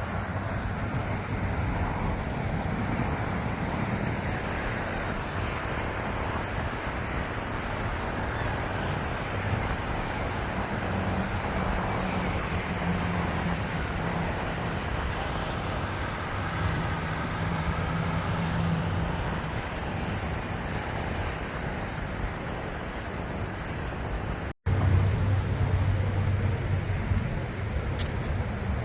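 Steady road traffic noise of passing cars, with a low engine hum under it. The sound cuts out for an instant about four seconds before the end.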